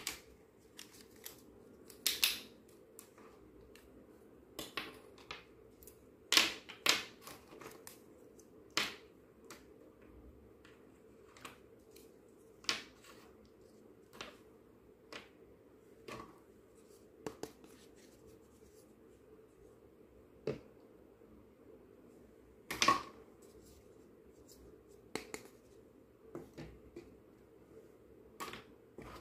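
Small hard-plastic toy kitchen pieces (cutlery, cups, a little pot) being handled and set down on a table: irregular light clicks and taps, with a few louder clacks.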